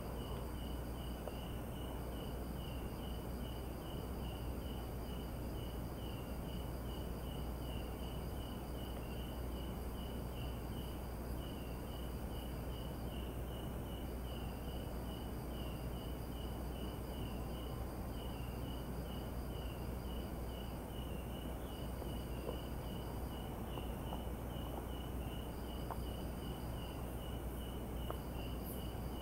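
Night insects in the forest: an even, rapid chirping a few times a second, with a higher steady trill that breaks off and starts again several times and a constant thin high whine over a low hiss.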